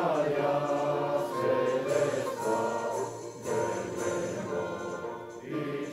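A choir singing slow, held notes in several voices, the chords shifting every second or so.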